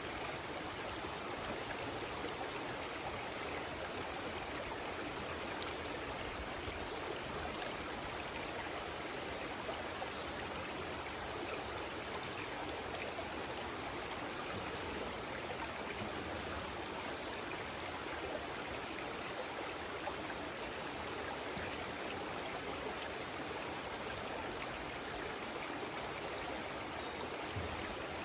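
A stream of water running steadily, an even rushing without breaks. A few faint, short high chirps sound over it now and then.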